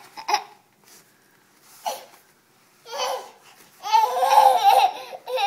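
Toddler laughing and babbling in short bursts, with the longest, loudest run of laughter about four seconds in.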